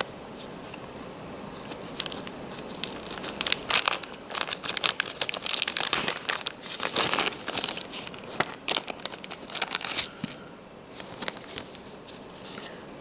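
Gloved hands crinkling and tearing at small plastic packaging to get it open, in bursts of crackling from a few seconds in until about ten seconds in, with a few light clicks and rustles around them.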